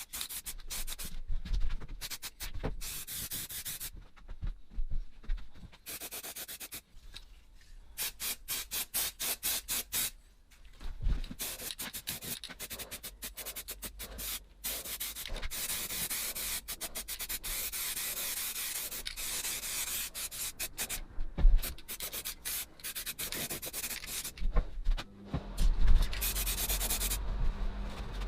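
Hand sanding: an abrasive rubbed back and forth in quick, uneven strokes, in runs broken by short pauses. A low steady hum comes in near the end.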